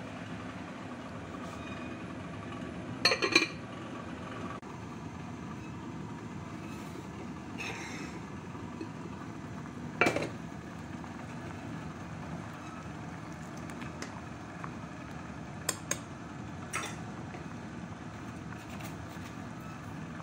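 Soup boiling hard in a ceramic pot over a lit gas burner, a steady rushing bubbling noise. Over it come a few sharp clinks of crockery or metal against the ceramic pot: a cluster about three seconds in, a louder one about ten seconds in, and a few lighter ones around sixteen seconds.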